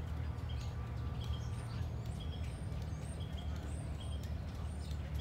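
Diesel-electric locomotives running with a steady low rumble as they move slowly at low throttle during switching. Birds chirp over it, with short high chirps repeating about every half second.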